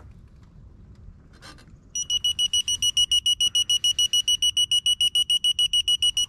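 Digital torque wrench beeping rapidly, a high-pitched pulsed tone about eight times a second, starting about two seconds in. It is the wrench's alert that the target 90-degree turn on a cylinder head bolt has been reached.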